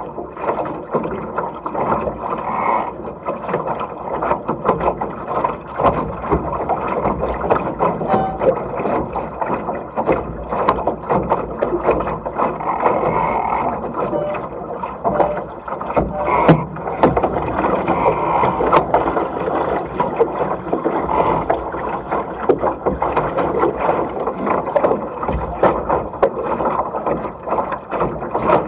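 Water rushing along and slapping against the hull of a small single-handed racing dinghy under sail, with frequent sharp knocks and splashes.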